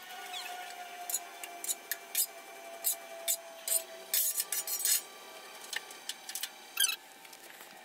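Metal spatula scraping and tapping on the steel top of a Blackstone griddle as pancakes are lifted off: an irregular run of short, sharp scrapes and clicks, with a faint steady tone underneath.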